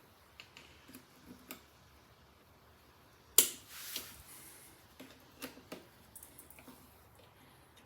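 Scattered sharp clicks and light metallic taps of tools and brake parts being handled while working on a motorcycle's rear brake caliper. The loudest click comes about three and a half seconds in, with a short rustle after it, and a few smaller clicks follow a couple of seconds later.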